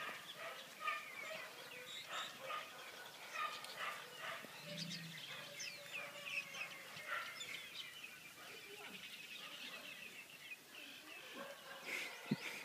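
Many dogs barking and yelping over one another as a pack.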